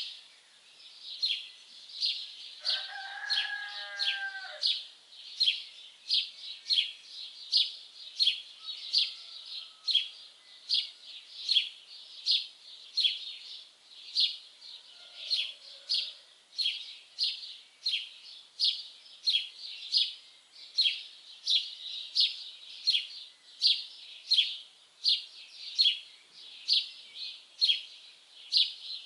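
A songbird repeating one short, high chirping call over and over, evenly, about one and a half times a second. About three seconds in, a lower, drawn-out bird call lasting about two seconds sounds once behind it.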